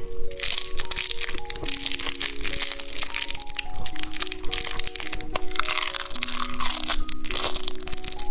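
Close-miked crunching and chewing of a crisp candy snack, a dense run of crackly bites, over background music playing a simple melody of held notes.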